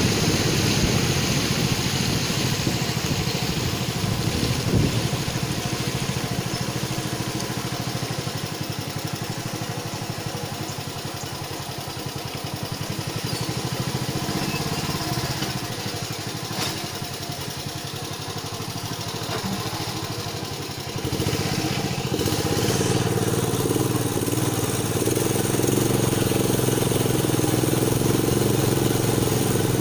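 Longtail boat engine running steadily under way, with a slight dip in level mid-way and a step up louder about two-thirds of the way through.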